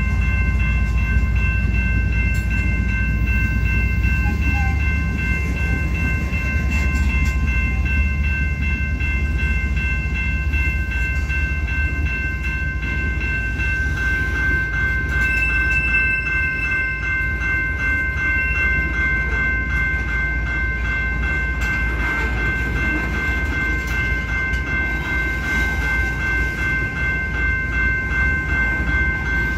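Union Pacific freight train running, a heavy low rumble with a steady high-pitched whine held over it.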